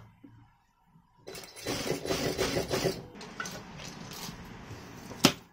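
Sewing machine running, stitching the hem of a plaid school skirt. It starts about a second in, louder at first, then settles to a lower, steady run, and stops with a sharp click near the end.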